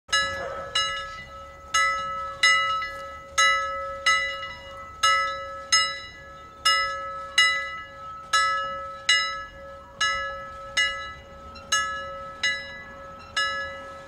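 Intro music of bell-like chimes, struck about every 0.8 seconds and ringing out, over a steady held tone; it fades out at the end.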